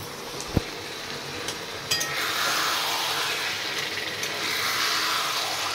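Flat metal spatula stirring and scraping taro leaves and prawns in a metal wok, the food sizzling in hot oil. A knock about half a second in and a couple of clinks near two seconds, after which the sizzling and stirring run steadily.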